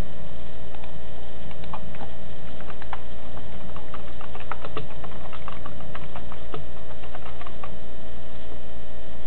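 Computer keyboard keys clicking in quick, irregular runs of typing, over a steady hum.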